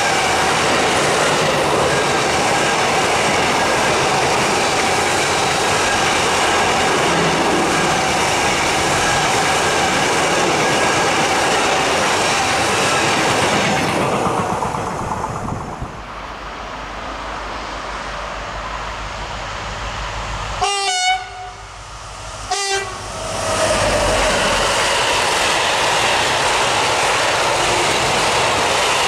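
Freight train of hopper wagons passing on the rails, its wheel noise dying away about halfway through. A second freight train approaches with a low rumble, sounds its horn in two short blasts about two seconds apart, and its hopper wagons then pass with loud wheel noise.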